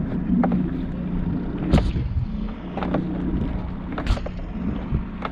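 Small boat's outboard motor idling, a steady low hum under a low rumble, with several sharp knocks and clatters as a crab pot rope is hauled in by hand over the side of the aluminium skiff.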